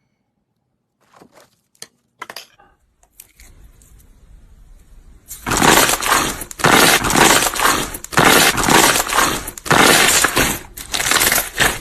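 Slime being squeezed and pressed by hand: a few sharp clicks, then about five seconds in, loud, dense crackling that comes in repeated surges.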